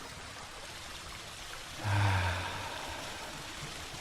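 Flowing stream water, a steady even rush. About two seconds in, a brief low hum rises over it and fades.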